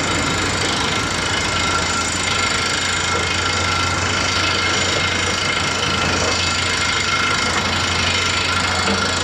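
Komatsu PC228US LC excavator at work: its diesel engine running under a steady low hum, with a dense grating crunch of the bucket working through gravel and rock.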